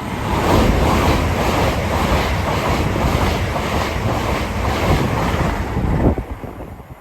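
LNER express passenger train passing through the station at speed without stopping: a loud rush of wheel and rail noise with a rhythmic clatter of wheels over the track. It cuts off suddenly about six seconds in as the last carriage goes by.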